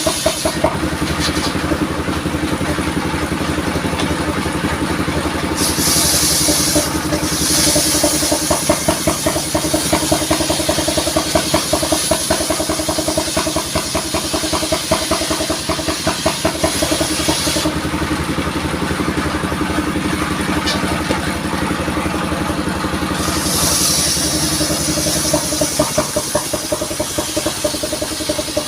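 Engine of a vehicle-mounted mobile sawmill running steadily, with a high hiss that comes and goes several times over its steady pulsing.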